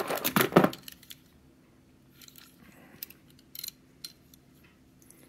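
1970s Matchbox diecast metal toy cars clinking against one another as a hand rummages through a cardboard flat of them: a quick cluster of clicks in the first second, then a few scattered single clicks.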